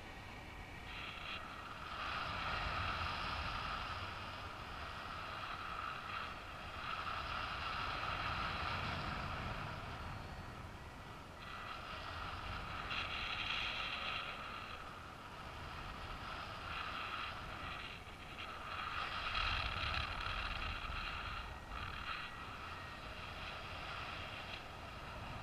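Airflow rushing past a camera on a paragliding harness in flight, with a low buffeting rumble. It swells and fades every few seconds.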